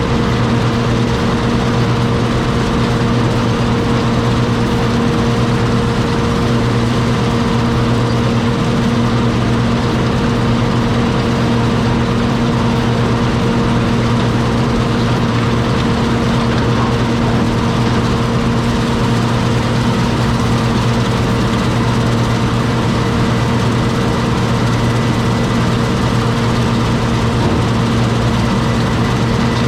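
John Deere 6620 combine's diesel engine running steadily at an unchanging speed, with a constant hum.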